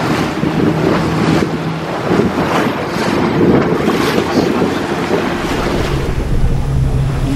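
A small sightseeing boat's engine running steadily while the hull splashes through waves, with wind buffeting the microphone.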